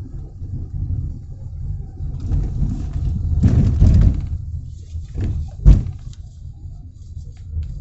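Steady low traffic rumble, with a passing vehicle swelling and fading between about two and four seconds in. A short knock follows, then a sharp thump a little before six seconds in, the loudest sound here.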